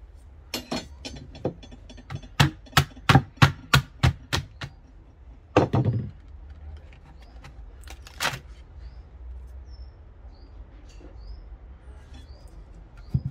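Hammer and chisel knocking out the sawn waste of a half-lap joint in a treated 4x4 fence post. A run of sharp wooden knocks comes at about three a second, followed by a louder, longer crack near the middle and a single knock a couple of seconds later.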